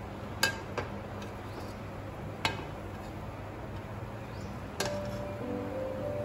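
A steel serving spoon clinking against the pot as biryani rice is scooped out: four sharp clinks, the loudest about half a second in. Soft background music comes in near the end.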